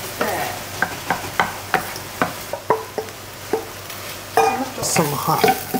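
A wooden spatula knocks and scrapes against a frying pan about twice a second while ketchup-coated diced chicken, onion and green pepper sizzle in the pan; cooked rice is stirred in as well.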